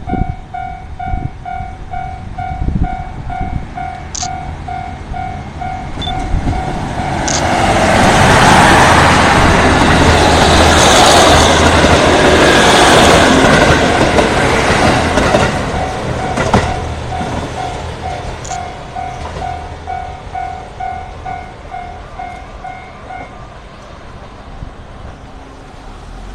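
Japanese railroad crossing alarm bell ringing, about two strokes a second, as a diesel limited express train passes over the crossing. The loud rush of engine and wheel noise swells about seven seconds in, peaks for several seconds and then fades away. The crossing bell stops about 23 seconds in.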